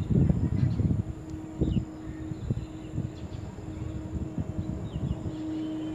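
Outdoor ambience: low rumbling gusts in the first second, then a steady low hum with short breaks, with faint bird chirps over it.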